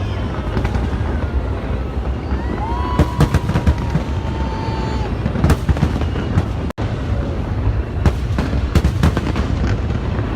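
Aerial fireworks bursting: clusters of sharp bangs over a continuous low rumble, with the heaviest volleys about three seconds in and again near the end.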